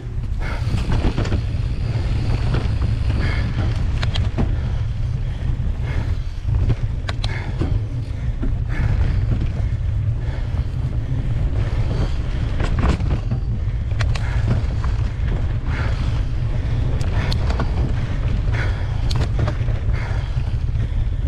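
Wind buffeting the helmet- or bar-mounted action-camera microphone as a Giant Trance 3 full-suspension mountain bike rolls along dirt singletrack, with steady tyre noise on the trail and frequent scattered clicks and rattles from the bike over bumps.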